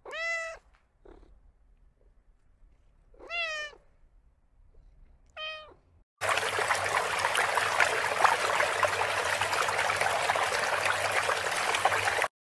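A domestic cat meows three times: short calls a few seconds apart, the last one briefest. Then, about six seconds in, a steady splashing rush of pond water takes over.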